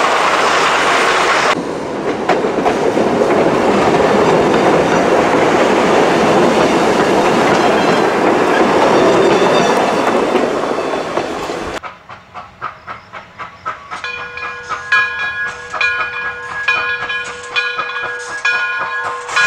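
A train rolls past close by, its wheels clattering loudly on the rails. Then, after a sudden change to a quieter scene, a steam locomotive, the Frisco 1630 2-10-0, approaches chuffing about twice a second. Its steam whistle starts a few seconds later and holds one steady chord.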